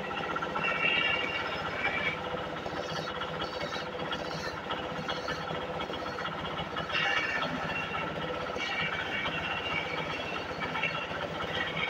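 Wood lathe running steadily while a hand-held turning chisel cuts a spinning wooden spindle. The rasping cut gets louder at times as the tool bites into the wood and throws off shavings.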